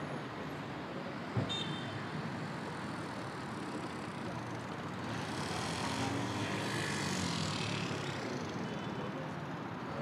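City street traffic noise, steady throughout, with a vehicle passing and swelling louder from about halfway in for a few seconds. A single short knock about a second and a half in.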